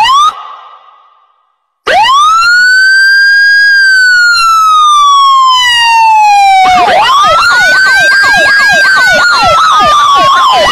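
Electronic siren: a short rising chirp, then after a pause of about a second a loud wail that rises and slowly falls. About seven seconds in a fast yelp joins a second wail, and the sound cuts off abruptly at the end.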